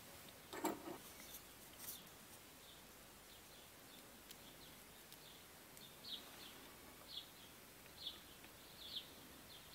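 Near silence with light handling of bicycle hub parts: one soft knock about half a second in, then faint high short chirps about once a second over the last few seconds.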